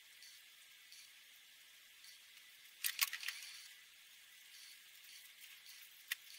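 Faint scratching of a felt-tip alcohol marker (Winsor & Newton ProMarker) on paper, with light ticks as the nib strokes. A cluster of louder clicks comes about three seconds in, and one sharp click near the end.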